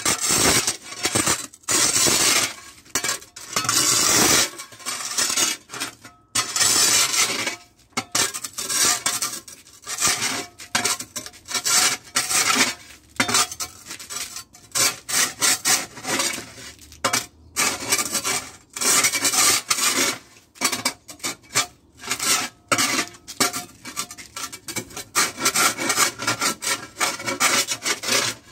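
Metal spade blade scraping and chipping ice and packed snow off a driveway in repeated short strokes, with scrapes and clinks of broken ice.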